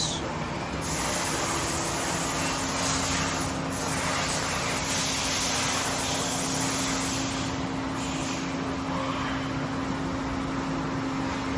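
A running CNC lathe and its auxiliary equipment give a steady machine hum with a level drone and a hiss. Stretches of sharper hiss come and go between about one and nine seconds in.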